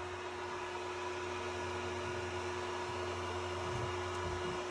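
Steady hum and fan noise from a Qidi Tech X-Plus II 3D printer standing idle after a finished print, with a faint low knock near the end.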